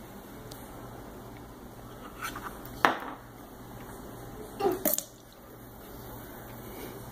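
A drinking glass knocking and clinking against a granite countertop: one sharp knock about three seconds in, then a short clatter of knocks a couple of seconds later, over a steady low hum.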